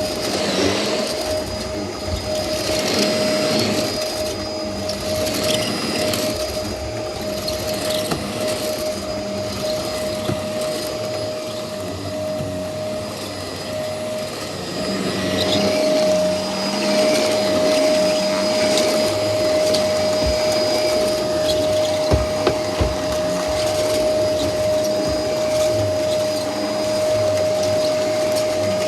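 Vacuum cleaner running over a rug: a steady motor whine over airflow hiss, getting a little louder about halfway through.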